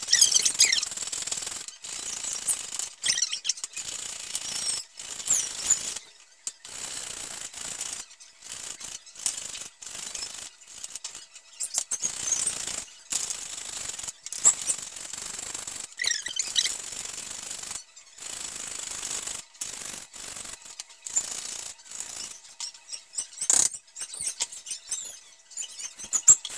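Raw beetroot grated by hand on the coarse blade of a handheld grater, in repeated scraping strokes broken by short pauses.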